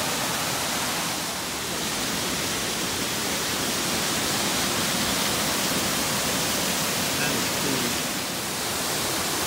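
Creek water rushing steadily down rock slabs and over small waterfalls, an even noise with no let-up.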